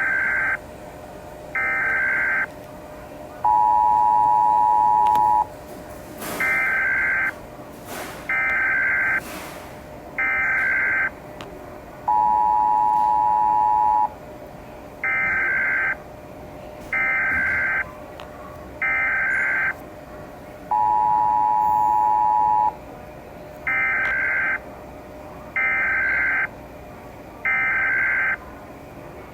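Emergency Alert System–style alarm: groups of three short buzzing data bursts, each under a second, alternating with a steady two-tone attention signal of about two seconds, the cycle repeating roughly every nine seconds.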